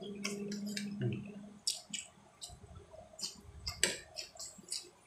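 A metal spoon clicks and scrapes against a plate while scooping rice, in a string of short, sharp clinks; the loudest comes near the end. A steady low hum runs under the first second and a half and then stops.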